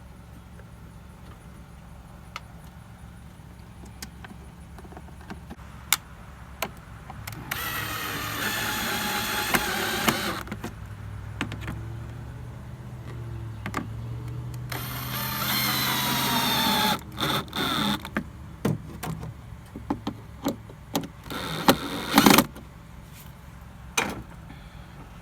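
Power drill driving in the screws that hold a blower motor resistor, in two runs of a couple of seconds each with the motor's whine sliding in pitch. Several sharp clicks and knocks of parts being handled follow, over a steady low hum.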